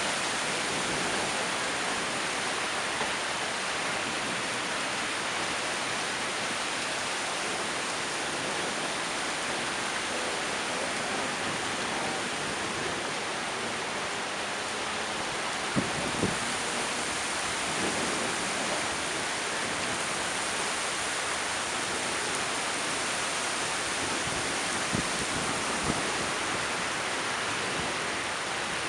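Heavy rain falling, a steady even hiss. A few sharper taps stand out now and then.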